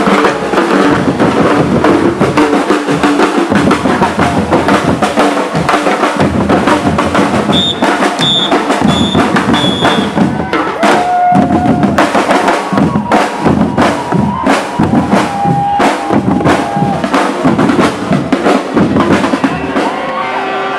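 Street protest drumming: many drums and percussion beaten in a fast, dense rhythm. About a third of the way in, four short high whistle blasts sound over it.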